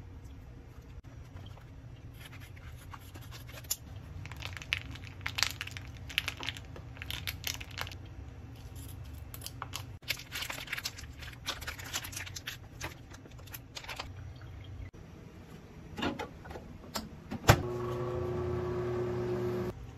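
Plastic packaging crinkling and tearing as a packet of meat in sauce is opened and squeezed out into a plastic tub. About 17 seconds in there is a sharp click, then a Whirlpool microwave oven starts running with a steady hum.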